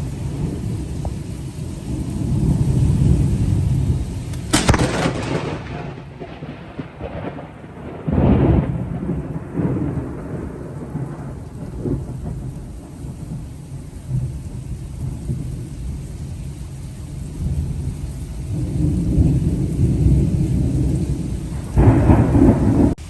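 Close lightning strike: a sharp crack of thunder about four and a half seconds in, another loud crackle a few seconds later, then rolling rumble that fades, with rain falling throughout. A second loud burst of rumble comes near the end and stops suddenly.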